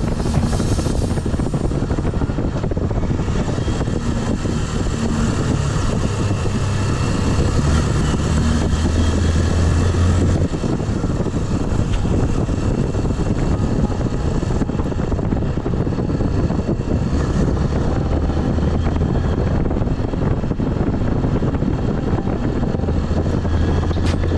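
Motorcycle engine running while riding, with wind rushing over the microphone. The low engine hum swells about a third of the way in and again near the end.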